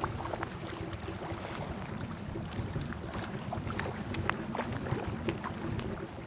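Wind rumbling on the microphone, with scattered small clicks and ticks and a faint steady hum.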